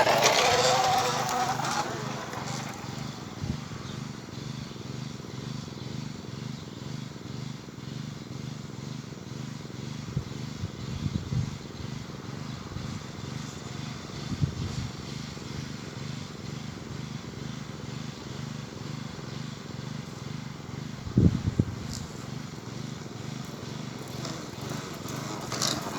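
Plastic bottle clapping against the spokes of a bicycle wheel, making a steady, even motorbike-like buzz as the bike is ridden, with a few short knocks about 11, 14 and 21 seconds in.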